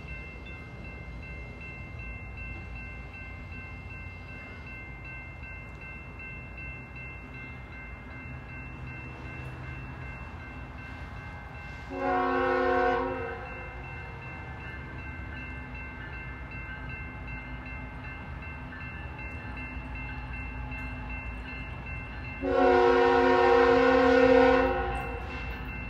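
Approaching BNSF diesel locomotive's multi-chime air horn, heard from out of sight, sounding twice: a short blast about halfway through and a longer one of about two seconds near the end. A steady low rumble runs underneath.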